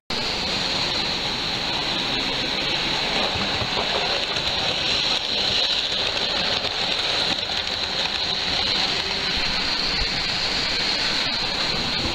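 Model railway train running on its track: a steady rushing rumble of wheels on rail and motor that starts abruptly.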